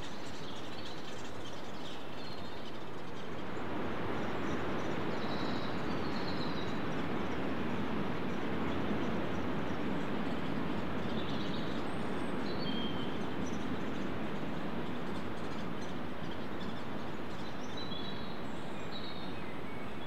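Steady rushing background noise in woodland that swells about four seconds in, with a few faint, high, scattered bird calls.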